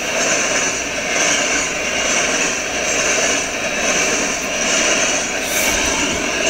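Loaded covered hopper cars of a freight train rolling past at speed: a steady roar of steel wheels on rail that swells and fades about once a second.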